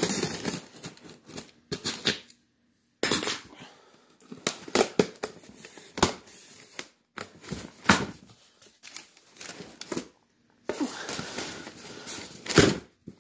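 Scissors cutting and scraping along the packing tape of a cardboard box in short, irregular snips and scrapes with brief pauses. Near the end, the tape is torn and the cardboard flaps are pulled open.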